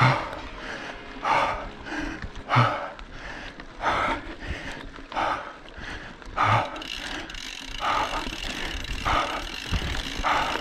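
Cyclist's heavy rhythmic breathing while riding, a hard exhale about every 1.3 seconds. Underneath is the steady noise of a mountain bike rolling over a dirt trail.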